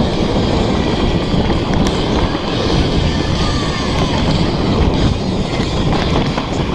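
Mountain bike tyres rolling fast over a rough, rocky dirt trail, a steady loud rumble with wind buffeting the microphone.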